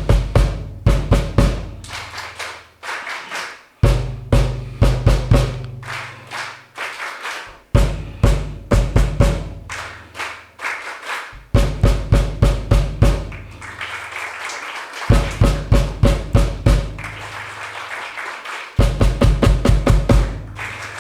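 Drum kit call-and-response: a short rhythmic phrase with bass drum and snare, struck about every four seconds, each answered by a crowd clapping the rhythm back.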